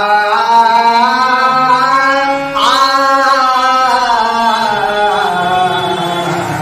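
Harmonium played with a man singing over it in long held notes; about two and a half seconds in the voice scoops up sharply and then glides slowly down.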